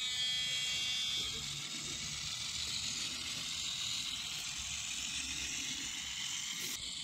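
Model Alco diesel locomotive with a sound decoder running along the track: the small-speaker diesel engine sound mixed with the whir of its electric motor and the wheels on the rails.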